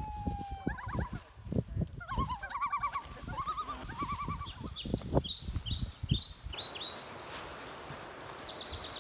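Wild bird calls: a long held note, then several runs of rapid warbling and higher chirps, over scattered knocks and thumps. About two thirds of the way through, a steady rushing noise takes over.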